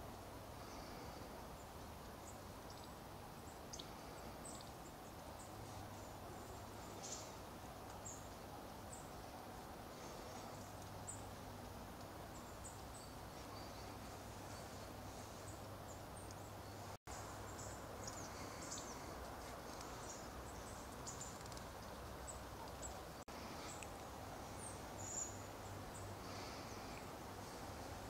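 Faint winter woodland ambience: a steady low hiss and hum with scattered brief, high chirps and ticks from small birds. The sound drops out for an instant about two-thirds of the way through.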